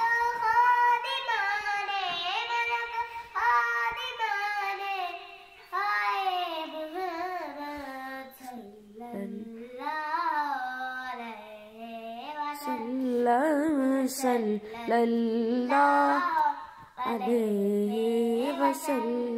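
A young girl singing a naat, an Urdu devotional song in praise of the Prophet, unaccompanied, in long wavering phrases with short breaks for breath.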